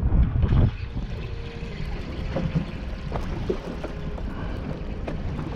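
Wind and sea noise aboard a small fishing boat, with loud wind buffeting on the microphone for the first half-second or so, then steadier and quieter, and a few light clicks scattered through.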